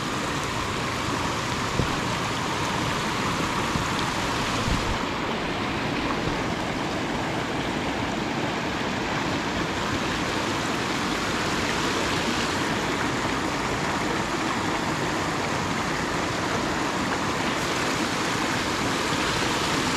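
Water rushing steadily over piled rocks, a small cascade of white water spilling into a river.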